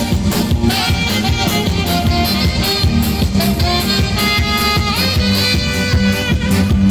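Live band dance music: a lead melody over a steady drum beat.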